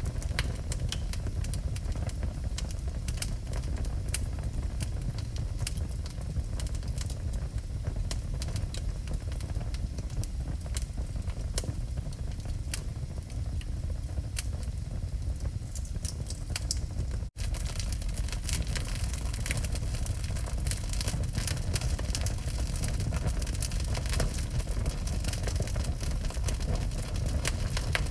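Wood fire burning in a fireplace, with irregular sharp crackles and pops over a steady low rumble. The sound cuts out for an instant about two-thirds of the way through, and the crackling is busier afterwards.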